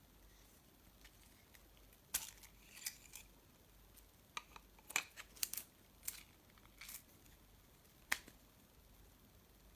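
Handling noise: a scattered series of sharp clicks and short rustles, about a dozen, starting about two seconds in and stopping a little after eight seconds.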